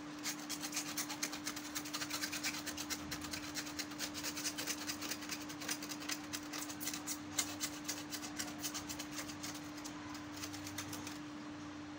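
Rapid scrubbing strokes against the plastic back grille of an air cooler, several a second, stopping shortly before the end, with a faint steady hum underneath.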